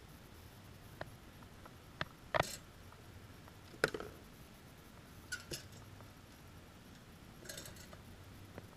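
Quiet background broken by a few short, sharp clicks and taps, the loudest about four seconds in, with a brief rustle near the end.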